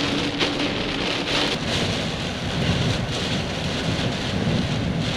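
Steady rain falling, with low thunder rumbling in the middle seconds after a nearby lightning strike.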